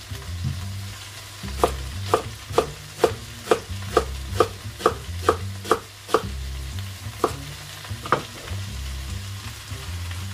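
A kitchen knife slicing a leek on a wooden chopping board: a run of about eleven even chops, roughly two a second, then two more spaced out. Bacon, onions and mushrooms sizzle steadily in a pan on the hob underneath.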